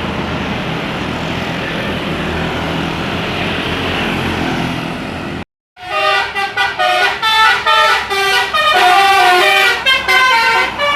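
Steady, noisy engine and road sound of a passing bus. After an abrupt cut about halfway through, a DAV Basuri musical air horn (bus telolet) plays a fast tune of many short, changing notes.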